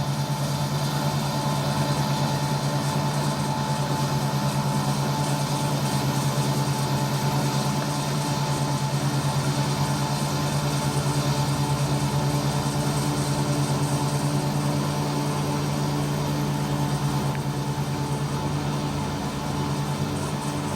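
ISEKI 325 rice harvester's engine running steadily with a constant low hum while it works the paddy.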